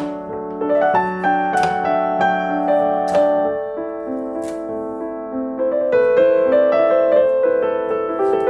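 Background piano music, with the knocks of a chef's knife slicing through a carrot onto a bamboo cutting board about four times in the first half.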